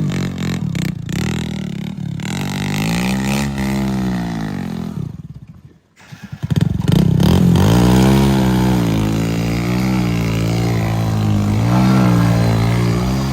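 Heavy diesel engine revving up and down repeatedly under load as the vehicle works to climb. About six seconds in, the sound drops away almost completely, then the engine comes back in and keeps revving.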